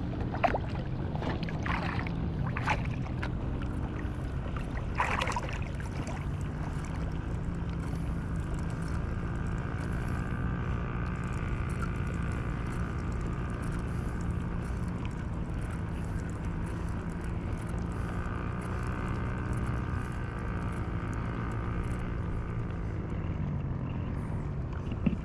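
A boat engine running steadily with a low hum. A few splashes of water come in the first five seconds.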